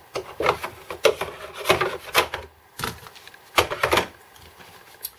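Hard plastic vacuum accessories, extension tubes and a floor nozzle, knocking and scraping as they are fitted into the insert of a plastic tool case: a run of irregular clatters and rubs.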